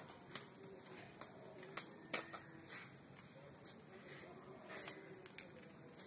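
Faint scattered soft clicks and light rustles, about one or two a second, over a steady low hiss.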